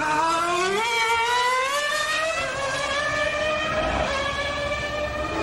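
A 1991 Formula One car's engine at high revs as the car accelerates: the pitch climbs, steps once about a second in, then rises slowly and holds steady.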